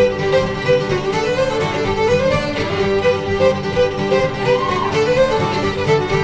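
Instrumental background music: a melody of held notes, sliding between pitches now and then, over a steady accompaniment.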